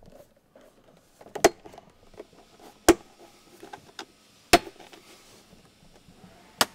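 Plastic clips of a center console trim panel snapping as the panel is worked with a plastic pry tool: four sharp snaps about a second and a half apart, with lighter clicks and plastic handling between them.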